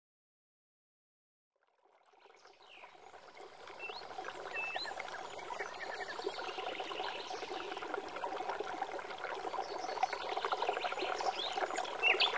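Water trickling and running, with small scattered chirps over it, fading in from silence about two seconds in and growing steadily louder.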